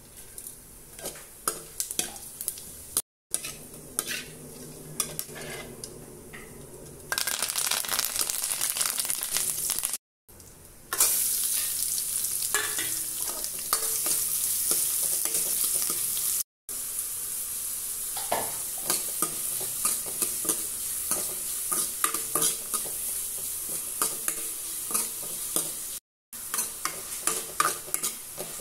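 Chopped onions frying in hot oil in a kadai with a steady sizzle, stirred with a steel ladle that scrapes and clicks against the pan. The start is quieter, with ladle clicks over fennel seeds in a little oil. The sizzle swells from about a quarter of the way in, and the sound breaks off abruptly a few times.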